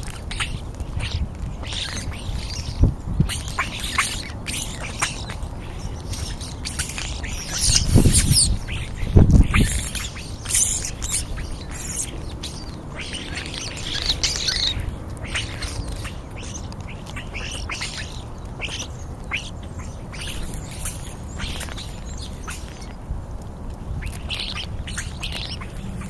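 European starlings chattering and squawking with many short, scratchy, high calls as they feed close by. Two low thumps stand out about a third of the way in.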